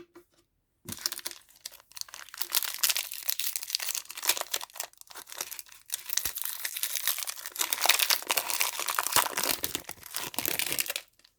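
Crinkling and rustling of a foil trading-card pack wrapper and cards being handled, starting about a second in and continuing almost to the end.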